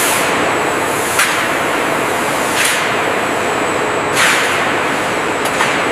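Steady industrial factory noise, a hissing machine din with a faint high whine, with a brief whooshing swell about every second and a half.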